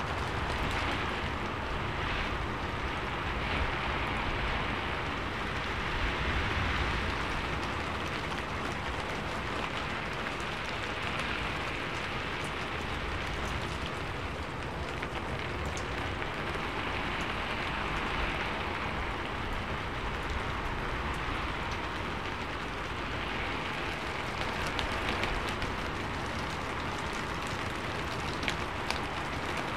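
Rain falling steadily on a sheet-metal roof: a dense, even patter of drops that swells and eases a little every few seconds, with sharper single drop ticks here and there, a few of them near the end.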